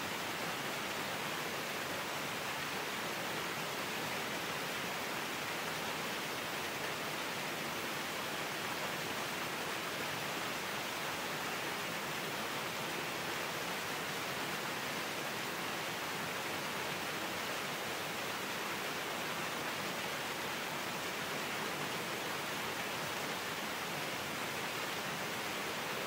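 Waterfall pouring down a rock face and splashing over boulders below: a steady, unbroken rushing of water.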